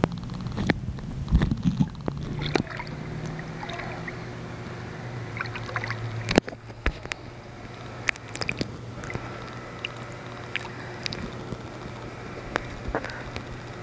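Swimming-pool water heard through a camera held in and just under the water: muffled water noise with a steady low hum, broken by scattered sharp clicks and knocks. The loudest knock comes about six seconds in.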